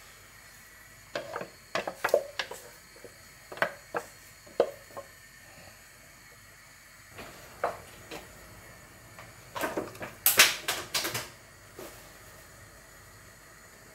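Blender jug knocked and tapped against a glass bowl while thick vegetable puree is emptied out of it: a scatter of short clicks and knocks, with a loud quick cluster about ten seconds in.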